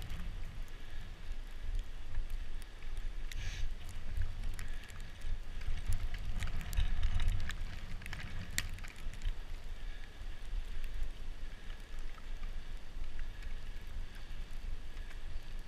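Bicycle riding over a snowy, slushy street, heard through a handlebar-mounted camera: a gusting wind rumble on the microphone, with tyre hiss and scattered small clicks and rattles.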